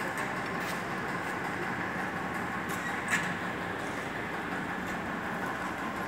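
Steady room hum with a few faint clicks and a light knock about three seconds in, from the thin sheet-metal lid of the washing-machine drum being lifted and held open.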